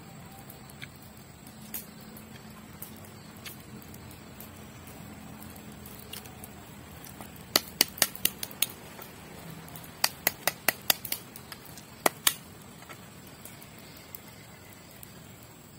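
Knife chopping on a wooden board: three quick runs of sharp knocks, about five a second, in the middle. The first two runs are about six knocks each and the last is two.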